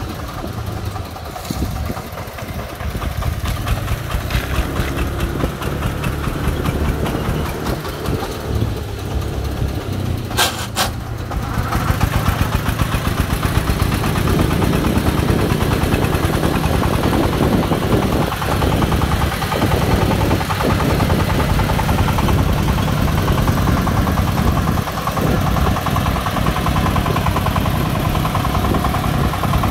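Single-cylinder D24 diesel engine of a three-wheeled công nông farm truck chugging steadily as it drives along hauling a load of sand. It gets louder about twelve seconds in.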